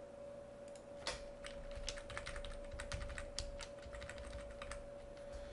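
Computer keyboard keys clicking in an irregular run of quick taps, starting about a second in, over a faint steady hum.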